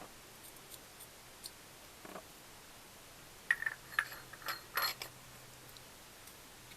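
Light metallic clicks and clinks of small tools or parts being handled, a few scattered ticks and then a quick cluster of sharp clinks about halfway through.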